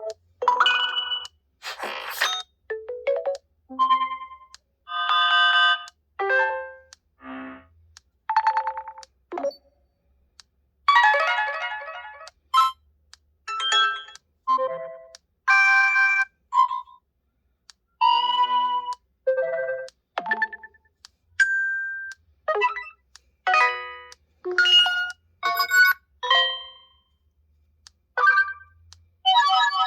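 HTC U23 Pro phone tones playing, a string of short electronic chimes and melodic snippets at changing pitches, one after another with brief silent gaps between them.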